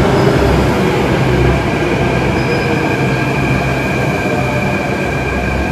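Delhi Metro train moving along an underground platform: a loud, steady rumble of wheels and car body with a thin, steady high whine over it.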